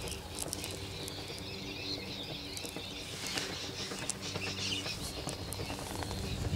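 Quiet open-field background: scattered bird chirps over a faint steady hum, with small clicks and rustles.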